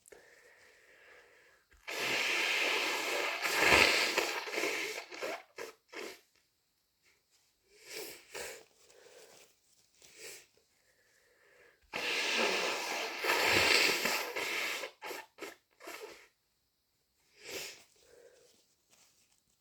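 A person with a head cold blowing her nose hard twice, each a long wet blow of three to four seconds that peaks near its end, with a few short, quieter sounds in between and after.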